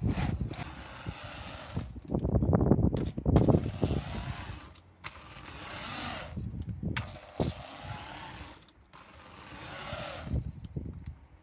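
Electric drill turning the input shaft of a homemade PVC gearbox, spinning the wheels of an RC motor grader's tandem drive in several runs. The drill motor speeds up and slows down each time, with a whine that rises and falls; the run about two seconds in is the loudest.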